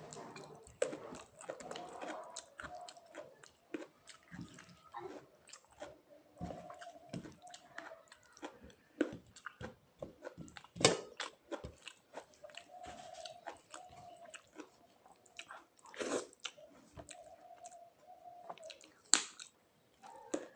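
A person chewing a meal close to the microphone: wet mouth clicks and smacks, with a few sharper crunches about halfway through and near the end.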